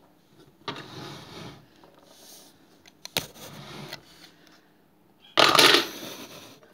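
A figure being sent down the hard plastic slide of a Big Yellow Teapot toy house makes these sounds: plastic scraping, a sharp click about three seconds in, and a loud half-second scraping rush near the end, the loudest sound.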